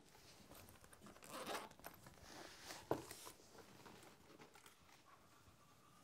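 Faint rustling and crinkling handling sounds, with one sharp click about three seconds in.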